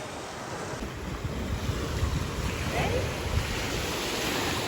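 Lake Michigan waves washing on the shore, with wind buffeting the microphone in a low rumble; it gets louder about a second in.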